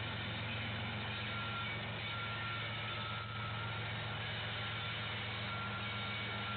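Diesel locomotive engine running steadily as the locomotive rolls slowly by, over a steady hiss, with a faint high tone that comes and goes.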